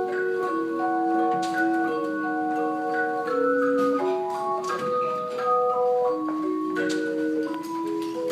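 Hand-held tone chimes, tuned aluminium tubes, playing a melody: clear, pure single notes struck one after another and left to ring, so they overlap into soft chords.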